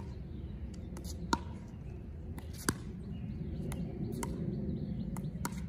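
Pickleball paddles striking a plastic pickleball during a dink rally: a series of short, sharp pops, the two loudest about a second in and just under three seconds in, over a low steady background rumble.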